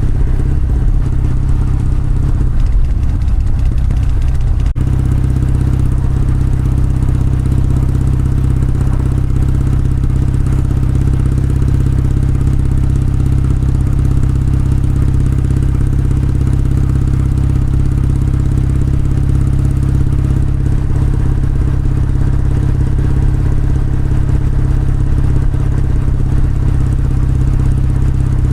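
Kawasaki W650's air-cooled parallel-twin engine and exhaust running steadily. The sound changes abruptly about five seconds in and then holds even.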